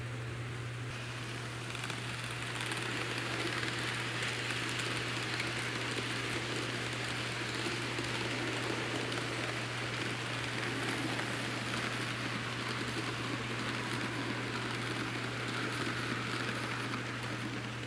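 N-scale model train cars rolling past on their track, a steady rushing of small wheels that swells about two seconds in and eases near the end. A constant low hum runs underneath.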